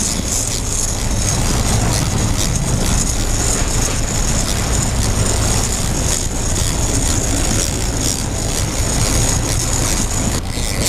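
A boat under way: a steady engine drone mixed with water rushing and splashing past the hull and wind buffeting the microphone.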